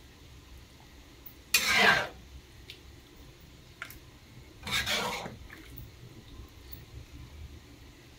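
Stirring vegetables in a pan: two scraping strokes of a spatula against the pan about three seconds apart, with a few light clinks in between.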